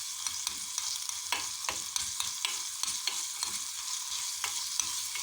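Mashed garlic and olive oil sizzling in a small pot as it heats through, with a utensil stirring and clicking irregularly against the pot.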